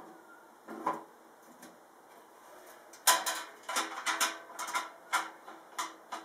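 Sheet-metal casing of a Swiss Army L 51 kerosene tower heater being lifted and handled on its burner base: a soft clunk about a second in, then a run of sharp metallic clanks and rattles over the last three seconds, each with a brief ring.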